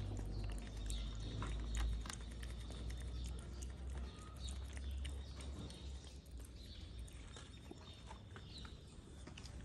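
A cat eating wet food from a tray close by: a run of quick wet smacking and chewing clicks, over a low rumble that fades after the first couple of seconds.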